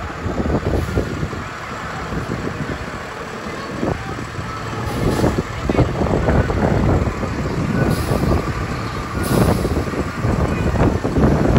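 A city garbage truck's diesel engine running as it moves slowly past.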